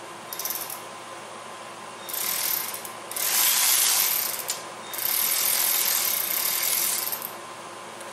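Milwaukee cordless electric ratchet running in short bursts, one very brief, then three of about one to two seconds each, as it unscrews the motorcycle's oil drain plug.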